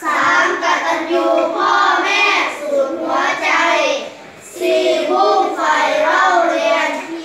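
A class of young children reading a Thai text aloud together in a sing-song chorus, phrase by phrase, with a short pause about four seconds in.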